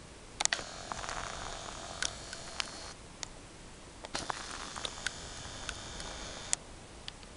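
Handling noise from a handheld camera: a steady hiss of the recording, broken by scattered sharp clicks and short rustles as the camera is held and moved.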